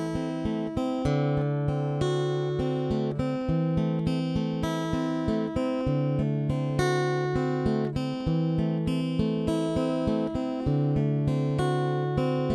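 Instrumental music: a steadily plucked acoustic guitar, picking about four notes a second over low notes that change every second or two.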